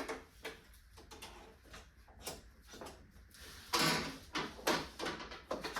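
Irregular clicks, knocks and scrapes of a car battery and its fittings being handled and shifted into place, with a louder, longer scrape about four seconds in and a few sharper knocks near the end.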